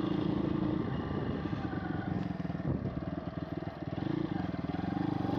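Pit bike's small single-cylinder four-stroke engine running under way, dipping about halfway through and picking up again near the end.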